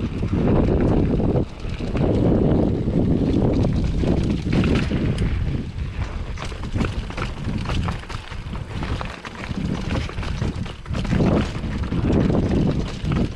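Full-suspension mountain bike riding down a rocky dirt trail: wind buffeting the action-camera microphone in surges, with tyres crunching over rock and frequent short clicks and rattles from the bike.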